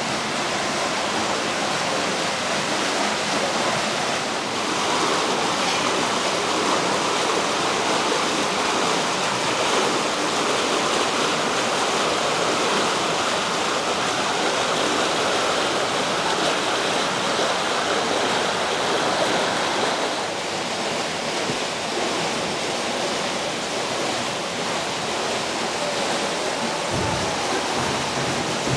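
Steady rushing, splashing water. The sound changes character about four seconds in and again about twenty seconds in.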